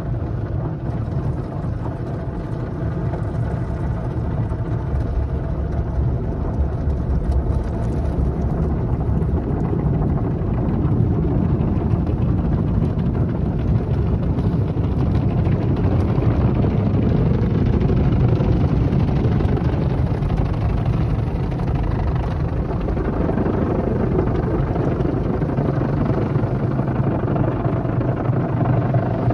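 Automatic car wash running over the car, heard from inside the cabin: a steady deep rumble of the wash machinery with water and foam spraying onto the glass, getting a little louder about ten seconds in.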